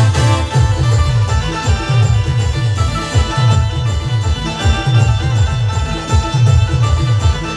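Band music: a fast, heavy bass beat of low thumps, each dropping in pitch, under sustained melody lines.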